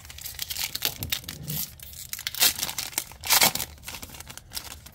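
Trading-card booster pack's foil wrapper being torn open and crinkled as the cards are pulled out, a run of sharp crackles that are loudest about two and a half and three and a half seconds in.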